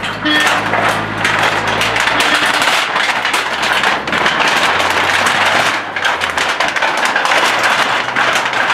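Demolition noise: a loud, continuous clatter of crashing and cracking debris over a steady low machine hum that fades about six seconds in.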